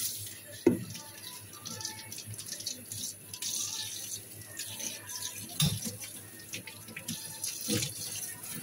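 Tap water running onto and into a plastic sauce-dispenser container as it is rinsed in a stainless steel sink, with three sharp knocks of the container being handled: about a second in, a little past halfway, and near the end.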